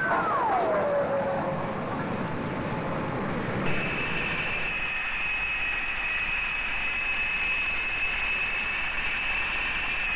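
McDonnell Phantom jet fighter passing, its engine whine falling steeply in pitch over about a second amid rushing jet noise. A few seconds in, this gives way abruptly to the steady high whine and hiss of a Vickers VC10 jet airliner's engines in flight.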